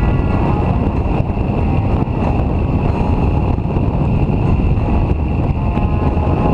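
Motorcycle cruising at highway speed: a steady engine drone under loud wind rush on the microphone.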